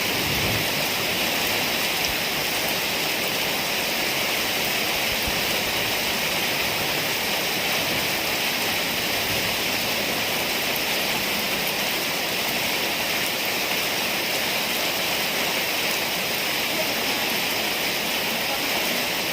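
Heavy rain pouring steadily, a dense even hiss with no break.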